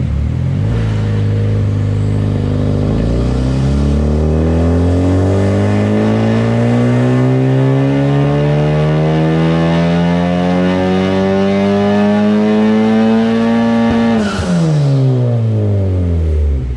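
Honda Civic Type R FK8's turbocharged four-cylinder engine making a full-throttle dyno pull, rising steadily in pitch from low revs for about thirteen seconds. About fourteen seconds in the throttle closes with a short rush of air and the revs fall away quickly.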